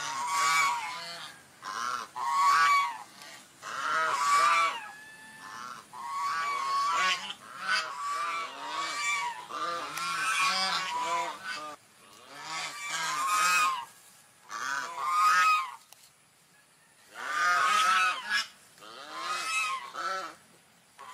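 Swans calling: bouts of repeated calls a few seconds long, each call rising and falling in pitch, with short pauses between bouts.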